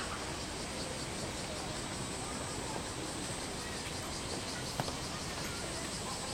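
Steady high-pitched insect buzzing over a constant low background noise, with one short click near the end.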